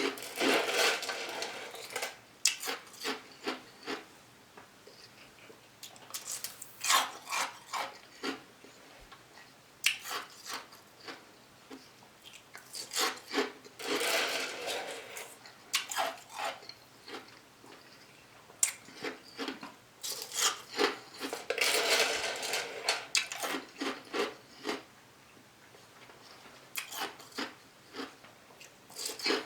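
A person chewing and crunching food, with irregular sharp crunches and longer stretches of chewing.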